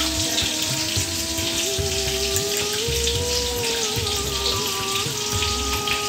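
Tomato slices frying in oil in a pan: a steady crackling sizzle.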